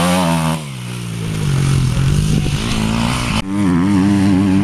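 Enduro dirt bike engines revving as riders race past, the pitch rising and falling with the throttle. The sound breaks off abruptly about half a second in and again about three and a half seconds in, then holds a steadier engine note.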